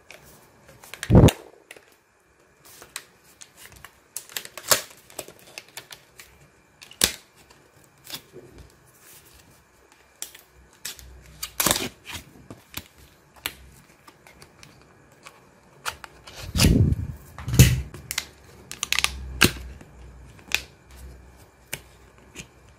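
A RAM stick's plastic retail packaging being opened and handled: irregular sharp clicks, taps and light crinkles, with a few louder knocks about a second in and again near the end.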